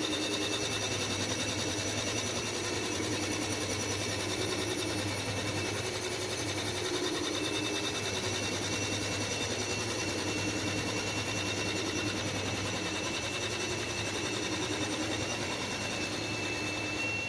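Bridgeport-style vertical milling machine running steadily, its cutter taking a light skim cut of about 7 thou across the deck of an aluminum LS cylinder head. It is a steady hum with a thin high whine over it.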